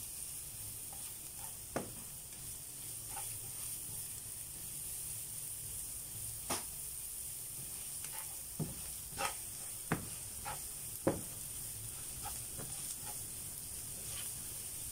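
Chopped onion and garlic sizzling steadily in hot oil in a non-stick frying pan, stirred with a slotted spatula that knocks and scrapes against the pan a handful of times in the middle stretch.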